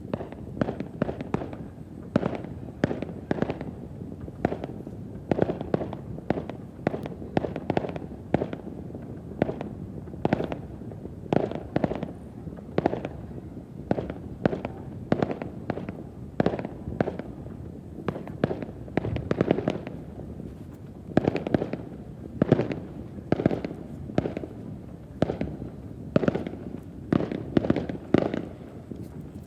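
Fireworks display: aerial shells bursting in a rapid, unbroken string of bangs, several a second, each with a booming tail.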